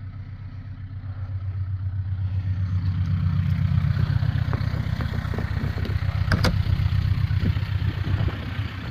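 A small vehicle's engine running steadily with a fast low pulsing, growing louder over the first few seconds, with a sharp click about six seconds in.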